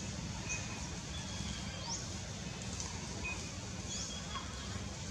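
Birds chirping, short high whistles and quick slurred notes every second or so, over a steady low rumble.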